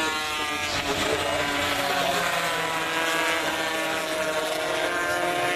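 Several classic racing motorcycles running hard through a corner, their engine notes overlapping and their pitch falling and rising as the riders brake and accelerate.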